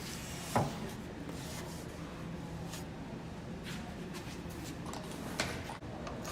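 Quiet handling of wooden table parts, with faint rubbing and shuffling and one short knock about half a second in.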